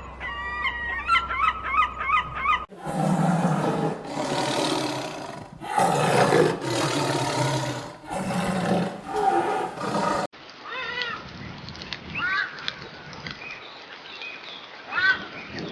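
Honking waterfowl calls for the first couple of seconds, then a big cat roaring in a series of loud, rough roars for about seven seconds. After that comes a thinner recording of short, high, quick calls.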